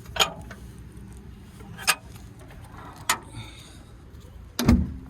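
Scattered sharp clicks and knocks, then two heavy thumps near the end as the digger's cab door is pulled shut.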